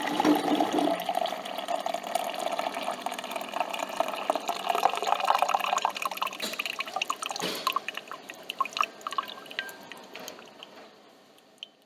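Coffee machine dispensing coffee into a cup: a stream of liquid with small dripping crackles that gradually thins out and fades to nothing near the end as the flow stops.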